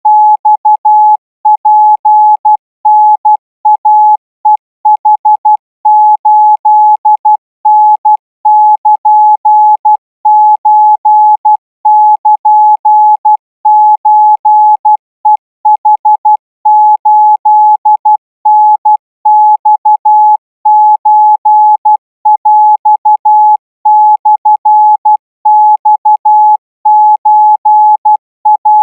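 Morse code sent as a single steady beep tone, keyed on and off in short dots and longer dashes with gaps between letters and words, at 16 words per minute: Thai-language Morse.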